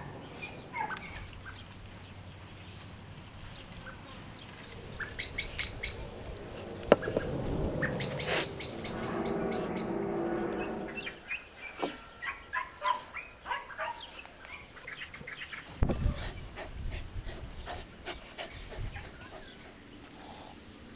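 Birds chirping and calling, over scattered clicks and handling sounds as dough is worked by hand in an enamel bowl; a low thump about sixteen seconds in.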